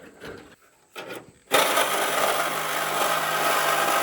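A power saw starts about a second and a half in and then runs steadily at one pitch, cutting. It is preceded by a few faint knocks and rustles.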